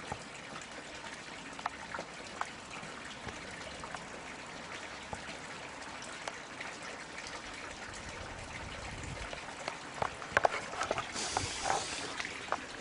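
Hand-held camera handling noise over a steady background hiss: a few faint clicks, then about ten seconds in a cluster of louder clicks and a brief rustle.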